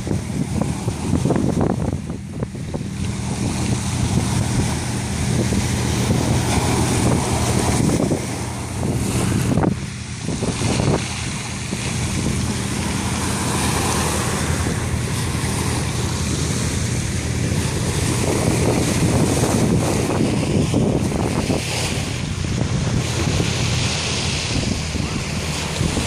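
Small waves breaking and washing up onto a stony shore in repeated surges, with wind buffeting the microphone and a steady low rumble underneath.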